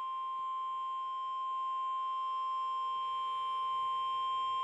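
NOAA Weather Radio 1050 Hz warning alarm tone: a single steady high-pitched beep held without a break, growing slightly louder. It is the signal that a warning broadcast is about to follow.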